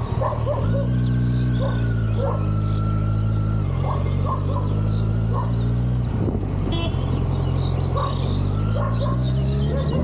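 Kawasaki Ninja 1000's inline-four engine revving up about half a second in, holding high, dropping back in two steps, then climbing again near the end. A dog barks repeatedly over it.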